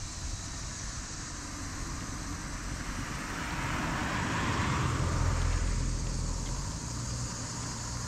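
A car driving past on a paved road: tyre and engine noise swells as it approaches, is loudest a little past halfway, then fades away.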